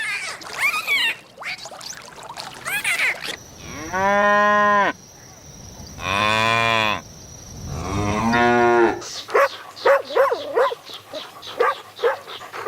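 Cattle mooing: three long calls, each about a second long, coming a couple of seconds apart in the middle. Shorter, quicker animal calls come before and after them.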